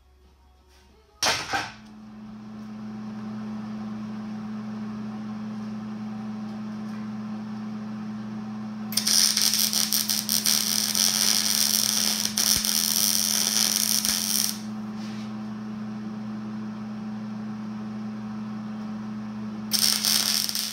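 MIG welding with a Miller Millermatic 211: after a sharp click about a second in, the welder hums steadily. The arc crackles and sizzles for about five seconds in the middle, and again briefly near the end.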